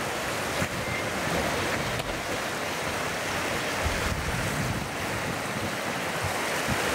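Fast-flowing irrigation canal water rushing and splashing around elephants moving through it: a steady, even wash of water noise.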